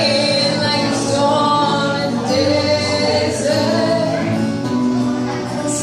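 Music with singing: voices holding long notes over a sustained accompaniment.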